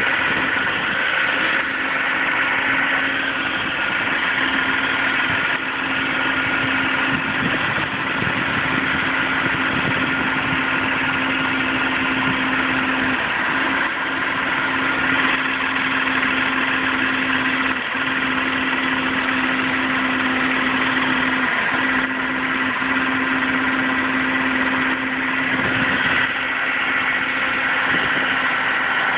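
2007 Audi A4 3.2 quattro's V6 running with a steady, unbroken hum that dips briefly a few times. This is the strange humming the owner hears, often when the car is driven aggressively, and its cause is unknown.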